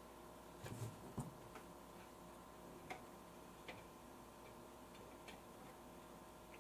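Faint, scattered light taps and scrapes of a spatula against a stand mixer's beater and stainless steel bowl as batter is scraped off, with a small cluster of taps about a second in. A faint steady hum runs underneath.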